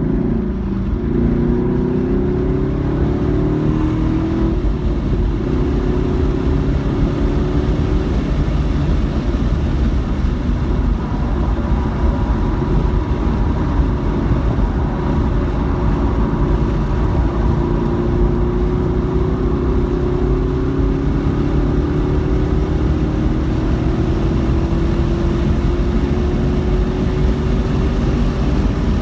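Car engine under hard driving on a racetrack, heard from inside the cabin: it climbs in pitch under acceleration at the start, holds steadier through the corners, then pulls in one long rising climb as speed builds on the straight. Road and wind noise run underneath.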